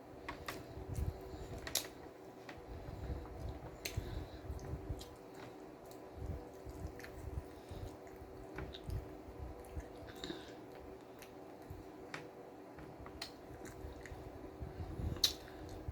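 A person chewing and biting a BLT sandwich close to the microphone, with irregular wet mouth sounds and small clicks.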